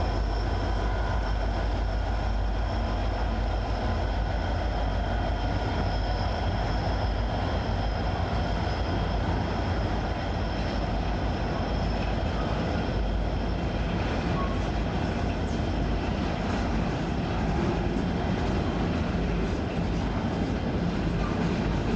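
Diesel-hauled coal train running past at steady speed: a heavy low rumble of locomotives and wagons on the track. Thin high wheel-squeal tones ring over it and fade out about halfway through.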